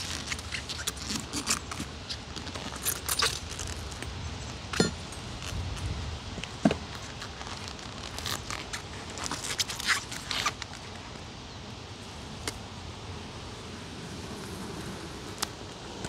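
Metal hive tool prying and scraping between the wooden frames of a beehive box, working them loose: scattered clicks, cracks and scrapes, with a low wind rumble on the microphone.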